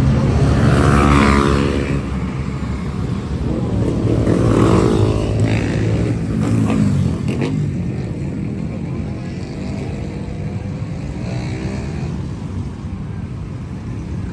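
Motorcycles and other traffic passing close by, the engine note bending in pitch as each one goes past, loudest about a second in and again about five seconds in, over a steady low traffic rumble.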